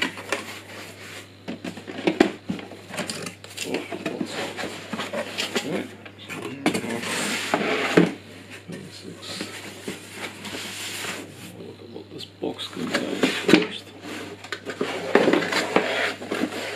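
Cardboard packaging being handled: box flaps pulled open and rubbing against each other, with irregular knocks, scrapes and rustles as the packing inside is moved. The sharpest knock comes about 8 seconds in.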